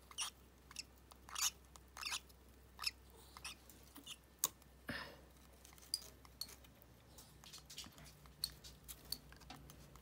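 Faint, irregular clicks and smacks from a baby lovebird chick working its beak at a hand-feeding syringe of formula, with soft crackles of shredded newspaper bedding.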